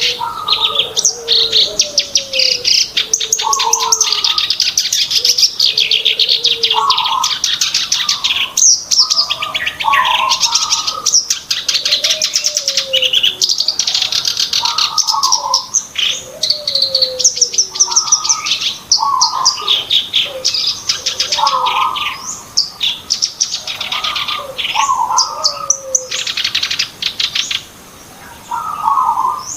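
Black-browed reed warbler singing a continuous, varied song of rapid, chattering high trills broken by lower slurred whistled notes between phrases.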